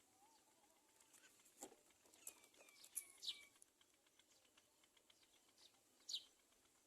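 Faint bird chirps and calls, including sharp downward-sliding chirps about three seconds in and again near the end, among scattered small clicks.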